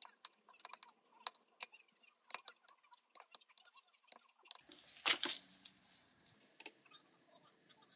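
A silicone spatula mixing seasoned cooked rice in a glass bowl: soft sticky squishes and small scattered taps against the glass. About five seconds in there is a brief louder rustle, then light handling sounds as a sheet of dried seaweed is laid on a plastic cutting board.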